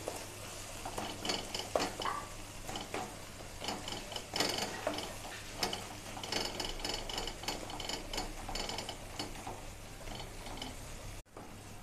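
Wooden spatula stirring and scraping thick onion-tomato masala around a non-stick kadai, in irregular scrapes and taps. The masala is being fried down until the oil separates.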